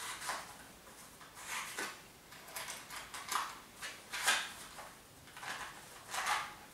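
A matchbox being handled: its tray slid open and a match picked out, heard as a string of soft scrapes and rattles.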